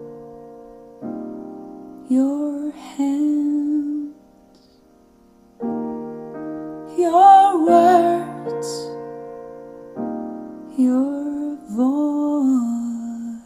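Slow ballad playing through a home-built Fostex three-way speaker system: sustained electric-piano chords, re-struck about a second in, near the middle and about ten seconds in, with a voice singing long, bending notes over them.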